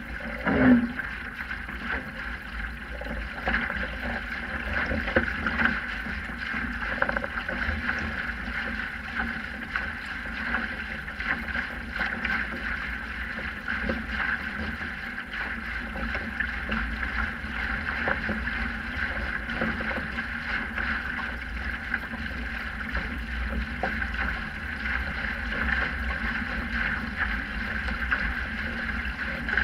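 Water rushing along a Sprint 15 catamaran's hull as it sails, with wind buffeting the microphone. One brief louder sound with a falling pitch about a second in.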